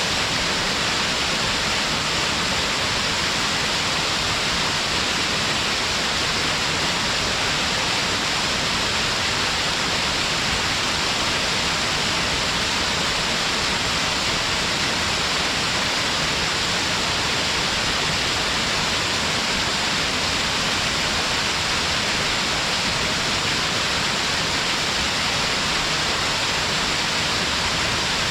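Stepped waterfall cascading down rock ledges: a loud, unbroken rush of falling water that stays even throughout, with its hiss strongest in the upper-middle range.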